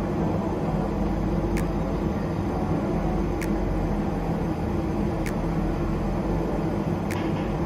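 Steady mechanical drone of machinery running on an airport ramp, with a faint tick about every two seconds.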